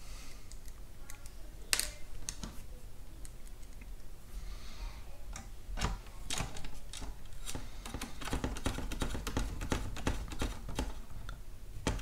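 A small hand screwdriver driving a screw into the plastic housing of a car's climate control unit: a run of light, irregular clicks and ticks from the bit and screw, getting busier about halfway through.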